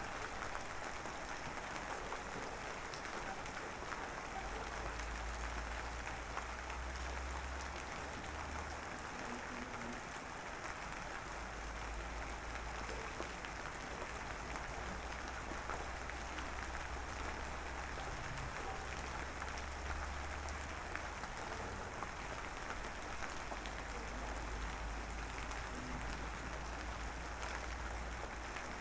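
Light drizzle falling steadily: an even hiss of fine drops with tiny scattered ticks. A low rumble comes and goes underneath.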